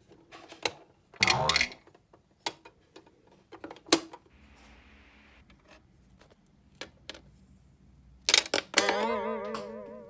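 Small sharp clicks and taps of miniature plastic toy kitchen pieces being handled and set down. Near the end, a wavering tone that wobbles rapidly in pitch for about a second.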